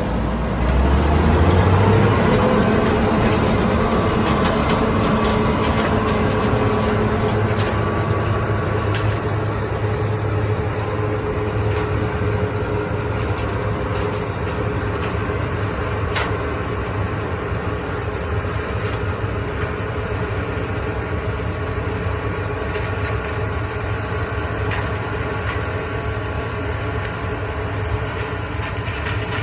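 Heavy diesel engine of farm harvest machinery revving up over the first couple of seconds, then running steadily under load.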